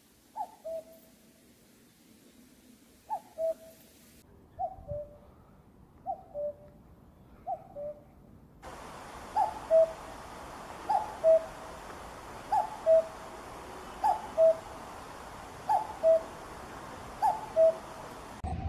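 Common cuckoo calling its two-note "cu-ckoo", the second note lower, eleven times at about one call every one and a half seconds. The background hiss changes twice, where separate recordings are joined, and the calls are louder after the second join.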